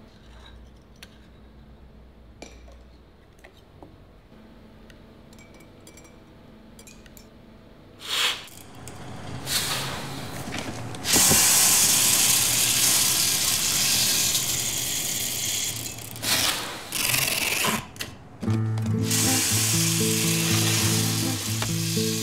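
Faint light clinks of metal spoons against glass, then from about eight seconds a rising rush that becomes a loud, steady mechanical noise of a coffee packing machine with roasted beans pouring through its chute. Music with low held notes comes in near the end.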